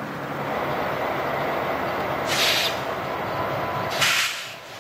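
Illinois Central diesel locomotive approaching at low speed, a steady rumble of engine and wheels, with two short bursts of hissing about two and a half and four seconds in.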